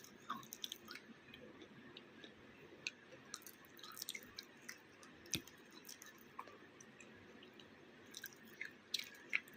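Close-miked chewing of baked clay: faint crunches and sharp crackles at irregular intervals, with a quick cluster of them near the end.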